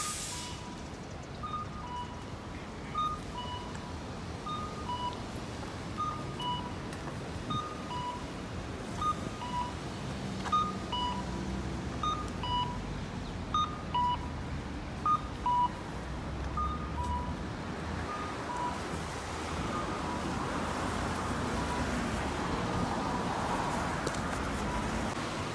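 Audible pedestrian crossing signal sounding a two-note falling beep, like a cuckoo call, about every second and a half, fading away near the end as the walker moves off. Traffic runs underneath, swelling in the middle.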